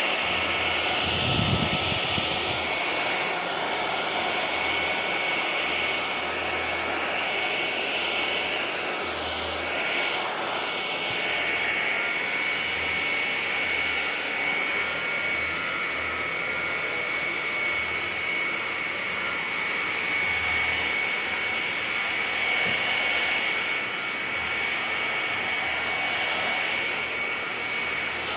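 Oraimo S3 cordless stick vacuum cleaner running steadily with a high-pitched motor whine and rushing air, its pitch shifting a little as it is pushed over the floor.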